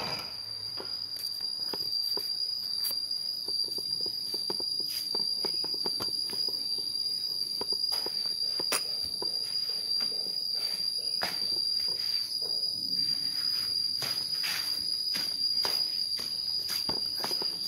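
A steady, unbroken high-pitched insect trill, with scattered clicks and taps from footsteps and handling of the phone.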